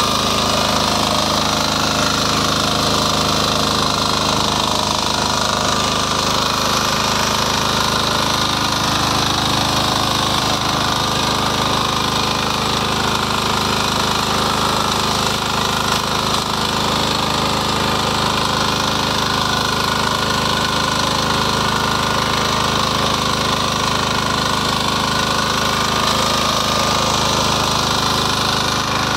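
Power weeder's engine running steadily at an even speed as the machine tills soil to form beds.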